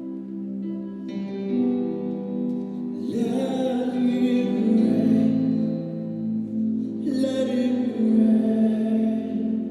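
Worship music: long held chords, with sung vocals coming in about three seconds in and swelling again near the end.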